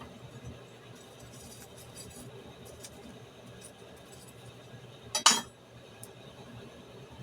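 Metal forge tool clinking sharply against metal, a quick double strike about five seconds in, over a faint steady low hum with a few light ticks earlier.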